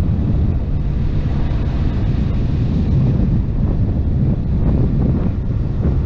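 Wind buffeting the microphone over a motorcycle engine running at riding speed, a steady low rumble.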